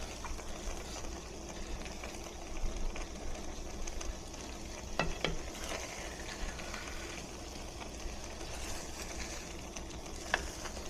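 Eggs cooking in a hot pan, sizzling steadily. A few light clicks sound about five seconds in and again near the end.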